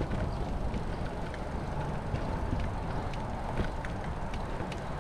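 Steady rumble and hiss of tyres rolling over a dirt road, with scattered small clicks and crunches.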